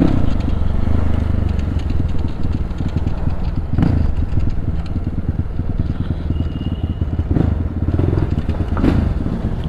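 Motorcycle engine running steadily while the bike is ridden, a low pulsing note throughout, with a couple of short knocks about four and nine seconds in.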